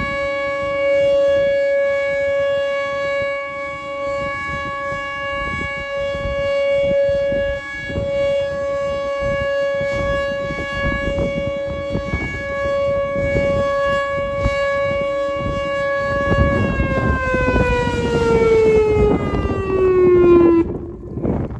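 Outdoor tornado warning siren sounding for its noon test: a steady wail that swells and fades as the siren rotates, then winds down in pitch over the last few seconds and stops.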